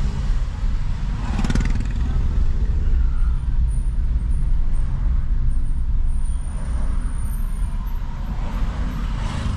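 Steady low rumble of road and engine noise inside a moving car's cabin, with a louder swell from a passing vehicle about a second and a half in and another near the end.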